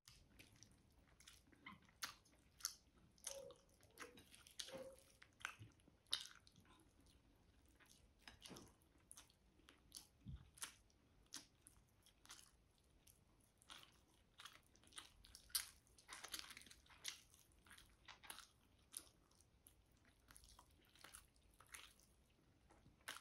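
Quiet, close-up chewing and mouth sounds of a person eating chicken adobo by hand: irregular wet smacks and clicks as the meat is bitten, pulled off the bone and chewed.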